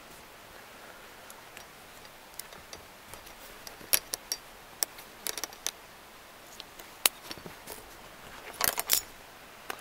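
Small metal keychain carabiners clicking and clinking against each other and the headrest posts as they are handled: scattered sharp clicks, bunched about four to five seconds in and again near the end.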